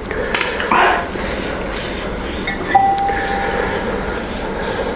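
Table clatter of pani puri being filled, with a metal spoon clinking against a glass bowl; a little under three seconds in, one clink rings on as a clear tone for about a second.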